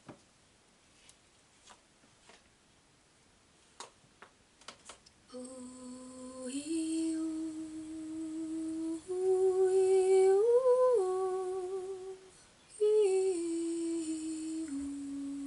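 Quiet for about five seconds apart from a few faint clicks. Then a voice hums a slow wordless tune in long held notes that step up and down in pitch, with a short break for breath about twelve seconds in.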